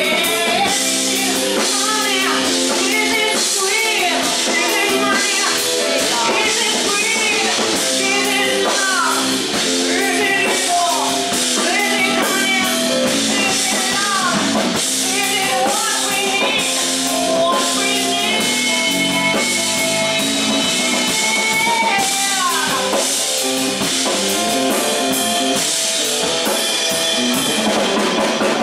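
Live band music: a woman sings into a microphone over drums and other instruments.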